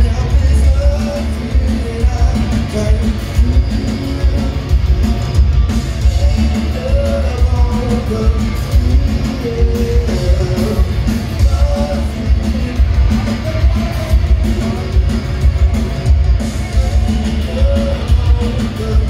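Live rock band playing loud electric guitars and drums with a sung melody, heard from among the audience in a concert hall, heavy in the low end.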